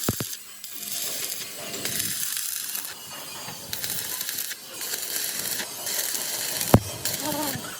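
Metal fabrication noise from steel plate work: a crackling hiss that starts and stops in stretches, with a sharp metal knock just after the start and another near the end.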